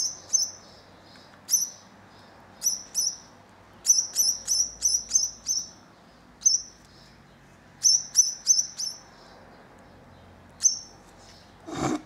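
Baby turquoisine grass parrot chick giving short, sharp, high begging chirps while being spoon-fed. The chirps come in quick runs of two to six, about four a second, with pauses between. A brief soft knock sounds near the end.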